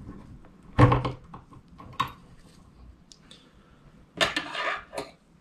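Small tools and bottles handled on a wooden desk: a sharp knock about a second in, a lighter tap a second later, then a short clinking rattle near the end as scissors are picked up.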